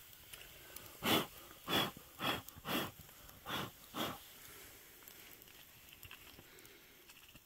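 A man blowing short puffs of breath on hot dogs fresh off the campfire coals to cool them: six puffs in about three seconds, starting about a second in.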